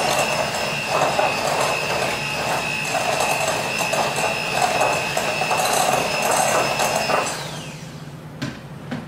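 Electric hand mixer running steadily with a high whine, its beaters churning through egg and creamed butter-sugar cake batter in a glass bowl. About seven seconds in it is switched off and the whine falls away, followed by two light knocks.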